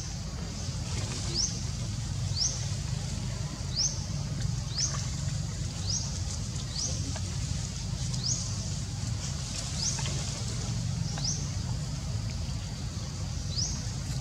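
A bird giving short, high rising chirps, about one a second at uneven spacing, over a steady low rumble.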